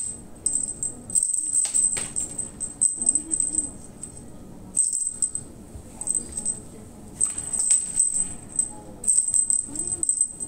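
A cat toy on a wand string jingling and rattling in irregular bursts while a cat bats and wrestles with it, with the rustle of a thin fabric sheet underneath.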